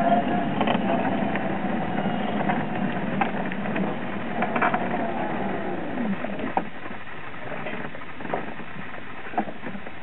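Electric mobility scooter's motor whining as it rides, the pitch rising and falling with speed, then dropping away as the scooter slows to a stop about six seconds in. After that comes a steady rush of wind and tyre noise with a few small clicks.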